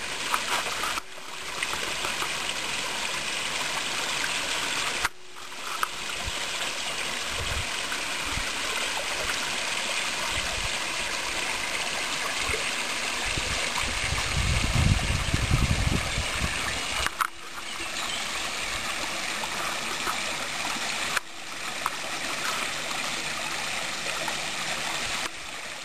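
Garden pond's rockery waterfall splashing and trickling steadily into the pond, with a low rumble for a few seconds past the middle.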